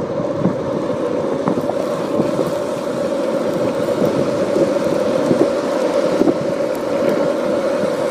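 70 mm longboard wheels with ABEC 9 bearings rolling fast over asphalt: a steady rolling rumble with a constant hum, small ticks from cracks and grit in the path, growing a little louder as speed builds.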